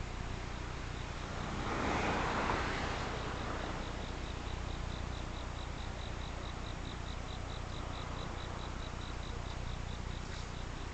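An insect chirping in a steady run of short, high pulses, about five a second, over a constant low hum. A rush of noise swells and fades about two seconds in.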